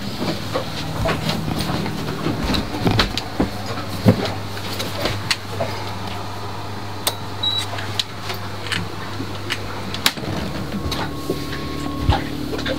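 Steady low mechanical hum with scattered sharp clicks and knocks as switches are pressed on a sailboat's electrical panel to power up the instruments. Near the end the hum gives way to a different, higher steady tone.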